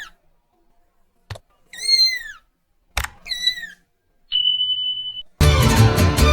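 A cat meowing, three short high-pitched meows that rise and fall, with a sharp click just before the second and third. Then a steady high beep lasts about a second, and music with a strong beat starts near the end.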